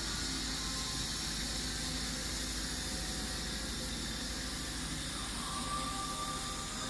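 Soraluce FL 5000 milling machine running, a steady hiss over a low hum; about five seconds in, a thin whine comes in, rises briefly and then holds steady.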